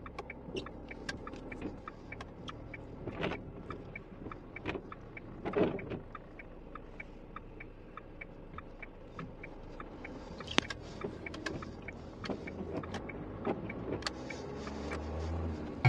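Heard from inside the cab of a moving delivery van: low engine and road noise, with a regular ticking about three times a second and a few louder knocks. The low rumble grows near the end.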